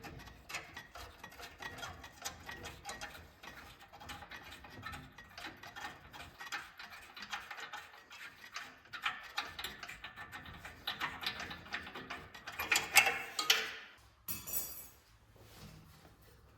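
Hand tools clicking and rattling against metal parts in an irregular run of small clicks, with a louder stretch of clatter near the end.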